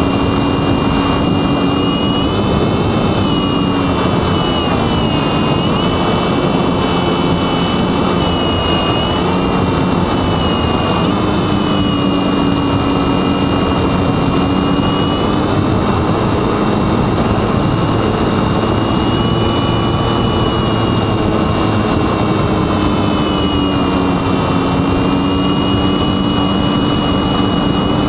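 Onboard sound of a small electric RC wing in flight: a Sunnysky X2220 brushless motor turning a 9x7.5 propeller, whining steadily with its pitch drifting gently up and down as the throttle changes, under a constant rush of wind noise.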